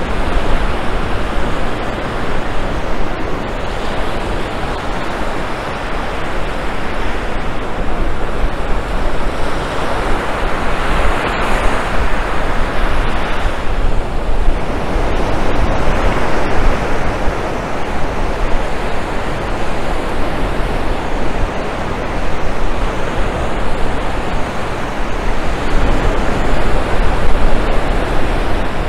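Ocean surf breaking and washing up the beach in a steady rush that swells and eases, loudest about ten to fourteen seconds in, with a low rumble underneath.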